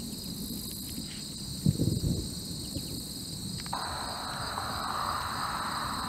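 Insects buzzing steadily in high continuous tones. A brief low rumble comes about two seconds in, and a lower buzzing joins abruptly a little past halfway.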